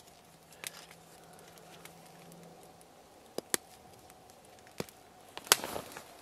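Scattered sharp clicks and taps of a knife and fingers working a cooked grouse on aluminium foil, with the loudest click and a short crinkle of foil near the end.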